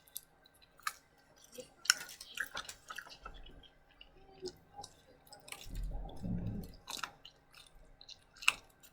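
A person chewing food close to the microphone, with many scattered short mouth clicks and smacks and a brief low sound about six seconds in.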